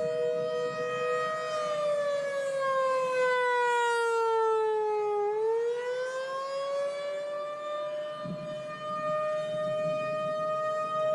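Two-tone civil defense siren sounding a steady chord that sags in pitch from about a second and a half in, bottoms out about five seconds in, then climbs back and holds the chord again from about seven seconds.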